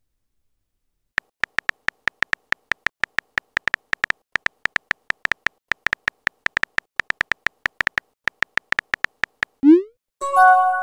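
Keyboard-typing click sound effect of a texting-story chat app: a long run of quick, evenly spaced taps, then a short rising swoosh and a message-alert chime near the end.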